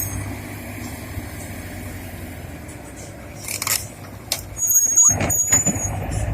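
Heavy diesel machinery running with a steady low drone. Past the middle come short hisses, then a high squeal over a louder burst of noise.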